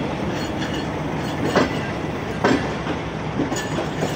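Passenger coaches rolling slowly past, wheels clacking over the rail joints about once a second, with short squeals from the wheels.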